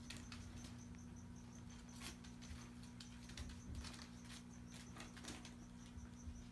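Savannah monitor lizards' claws clicking and scratching on a hardwood floor as they walk: faint, scattered taps at irregular intervals. Under them runs a steady low hum and a faint high chirp pulsing several times a second.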